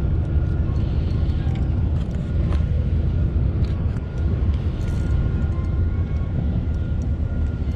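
Steady low rumble of wind buffeting an outdoor microphone, with a few faint clicks.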